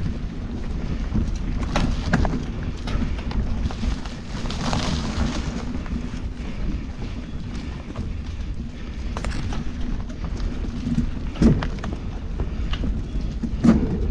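Mountain bike rolling slowly over a dirt forest trail, heard from a handlebar-mounted camera: a continuous low rumble with scattered knocks and rattles as the bike goes over bumps, the loudest knocks about eleven and a half seconds in and near the end.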